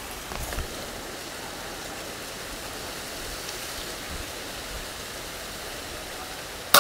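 Steady rushing of wind on the microphone. At the very end, a single sharp shot from the PX120 Minotaur PCP bullpup air rifle, followed by a brief ringing tone.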